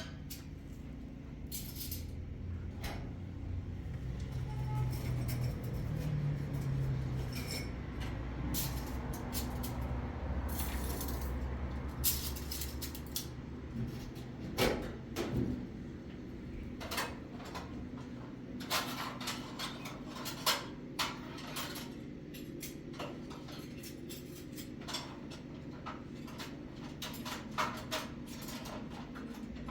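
An engine running with a low hum that fades out about thirteen seconds in. Scattered clanks and knocks, like metal tools, are heard throughout and come more often in the second half.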